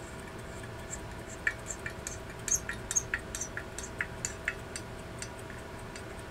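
A small screwdriver turning the screw that holds the top plate on a Mappin and Webb carriage clock: a run of irregular sharp metallic clicks and scrapes from about a second and a half in until nearly five seconds. Under it the clock's running movement ticks faintly and quickly throughout.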